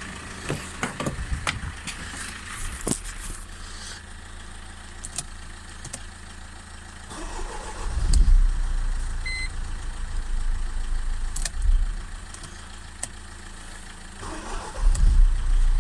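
Mercedes W202 engine being started and running after its passenger-side fuse-box fault has been fixed. A few clicks come in the first three seconds, and the engine surges louder about halfway through and again near the end.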